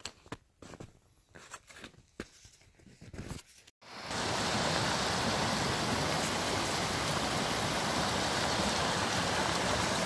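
Footsteps crunching in deep snow, irregular and soft. About four seconds in, a cut brings in the loud, steady rush of a small creek cascading over rocks.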